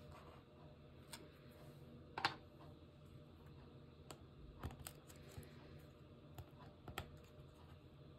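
Scattered sharp clicks and taps of a computer keyboard being typed on, with the loudest click a little over two seconds in, over a faint steady low hum.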